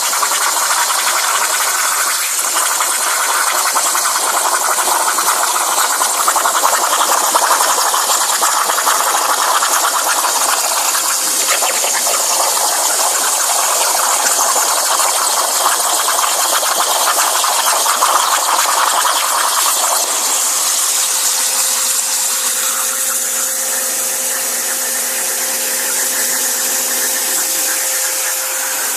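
Plasma cutter on a CNC table, the arc and air jet giving a loud, steady hiss as it cuts. About two-thirds of the way through, the hiss thins and a steady hum comes in beneath it.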